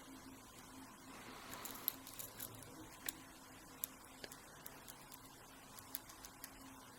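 Faint, irregular small clicks and ticks of a lock pick and tension wrench working the pins inside an American 5200GLKA padlock's tight, awkward keyway, about a dozen over several seconds.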